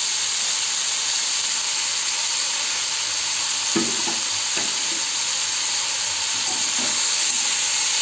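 Mixed shredded vegetables (cabbage, carrot, peas, spring onion) frying in hot oil in an aluminium kadai, a steady sizzle, with a few light knocks around the middle.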